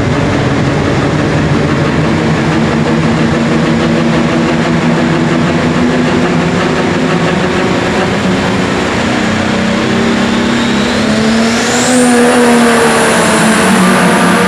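Pro Stock pulling tractor's turbocharged diesel engine running hard at the starting line. About ten seconds in, a turbocharger whine climbs steeply in pitch and then holds high as the engine is brought up for the launch.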